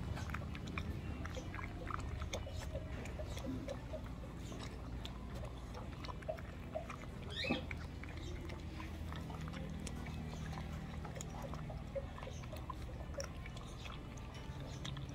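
A puppy eating dry kibble from a stainless steel bowl: irregular crunching and small clicks of kibble against the metal. One brief sharper sound about halfway through.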